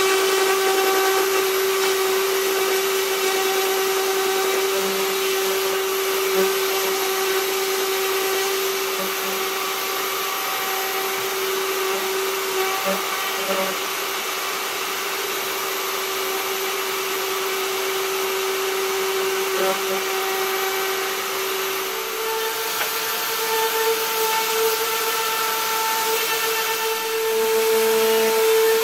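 Random orbital sander with a dust-extraction hose running steadily on a zelkova wood slab with coarse sandpaper: a constant motor hum over a hiss. About three-quarters of the way through, the hum steps up to a higher pitch.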